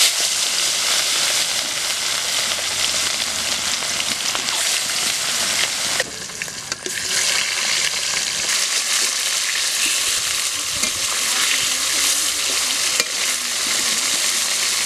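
Fish steaks frying in hot oil in a kadai: a loud, dense sizzle that starts suddenly as the fish goes into the oil, with a brief dip about six seconds in.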